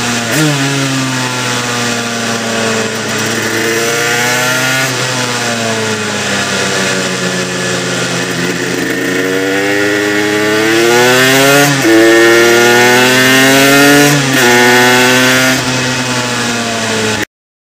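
Aprilia RS125's single-cylinder two-stroke engine heard from onboard, pulling through the gears at moderate revs while being run in, over wind rush. Its pitch rises and falls, with two quick drops at upshifts in the second half, and the sound cuts off abruptly near the end.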